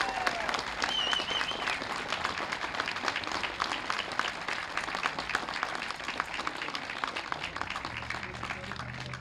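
Crowd applauding with dense clapping that gradually thins out and quietens.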